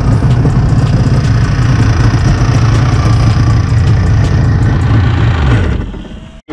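Freshly rebuilt Yamaha GP1300R's three-cylinder two-stroke engine running steadily, then shut off near the end: it fades over about a second and stops.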